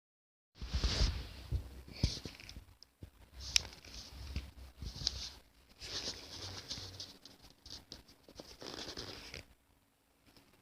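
Irregular rustling and scratching with a few light knocks and one sharp click, stopping about a second before the end.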